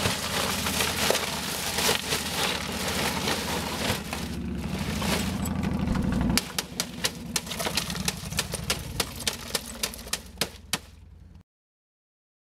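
Ice cubes clattering as a bag of ice is poured into a plastic cooler, then single cubes clicking and knocking about three times a second, over a low steady hum. The sound cuts off abruptly near the end.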